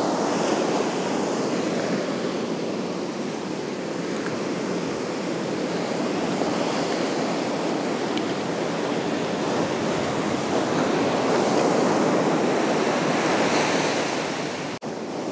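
Ocean surf breaking and washing up the beach: a steady rushing that swells and eases with the waves.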